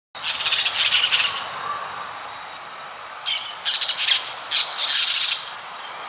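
Parakeet giving harsh, grating calls in bursts: a run of them in the first second or so, then several shorter bursts from about three to five and a half seconds in.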